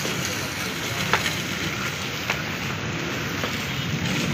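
Steady outdoor background hiss picked up by a handheld microphone, with a couple of faint clicks about a second and two seconds in.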